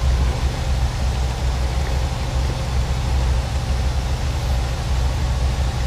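Semi truck's diesel engine droning steadily at highway speed, heard from inside the cab, over a steady hiss of road and wind noise.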